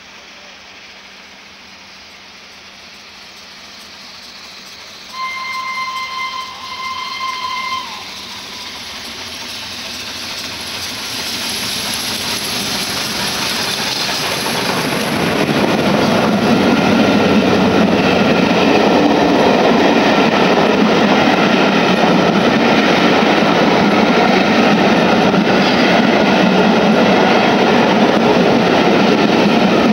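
LNER A1 Pacific steam locomotive 60163 Tornado sounds its whistle in two blasts, then passes at speed with its train. The noise builds as it approaches; once the engine is by, about halfway through, the coaches run past loudly and steadily on the rails.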